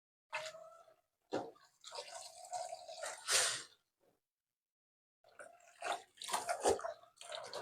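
Water running in a few short spurts and splashing, with gaps between, as from a tap being run briefly.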